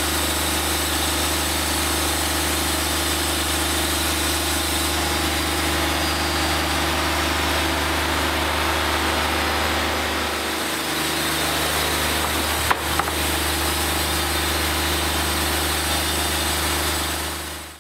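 Wood-Mizer LT40 Wide hydraulic bandsaw mill running, its engine droning steadily. The engine note shifts briefly about ten seconds in, and a single sharp knock comes a few seconds later.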